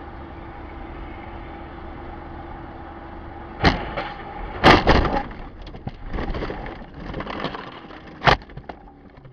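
Steady vehicle drone, then a road collision: a sharp crash about three and a half seconds in and a louder one about a second later, followed by rattling and clattering, and one more sharp bang near the end.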